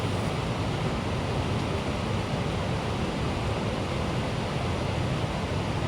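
Steady rain falling, an even rushing hiss with no breaks.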